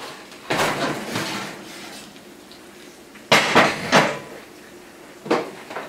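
A gas range's oven door opening with a clatter, then a cast-iron skillet taken out of the oven and set down on the stovetop's metal grates. There is a louder metal clank about three seconds in and a shorter one near the end.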